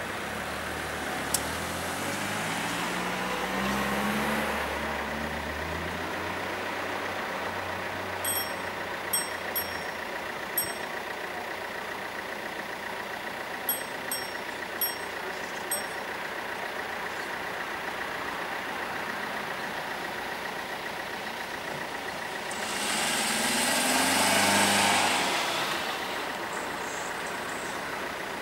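Road vehicles passing a closed level crossing: a car pulls away in the first few seconds and another drives past, louder, about 23 to 26 seconds in. A steady high ringing tone from the crossing's warning bell runs underneath, and a few light clicks come between about 8 and 16 seconds in.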